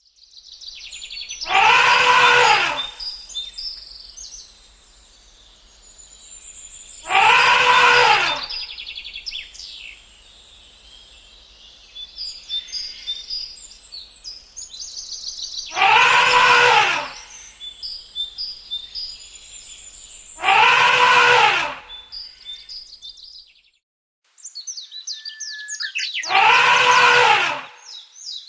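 A loud, drawn-out animal call, rising and falling in pitch, repeated five times a few seconds apart over continuous bird chirping.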